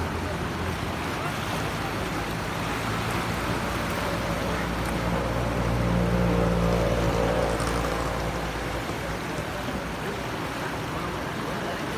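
Sea surf washing over shoreline rocks, with a motor engine humming steadily underneath, loudest around six seconds in.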